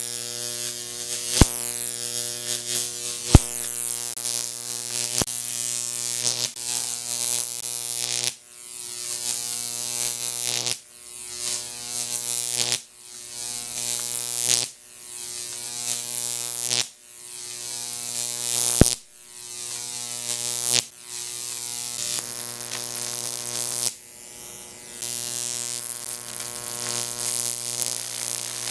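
Jacob's ladder fed by a 15,000-volt neon sign transformer: the arc between two copper rod electrodes buzzing. The buzz swells as the arc climbs the rods, then drops off suddenly about every two seconds as the arc breaks and re-strikes at the bottom, with a few sharp snaps early on and once more later.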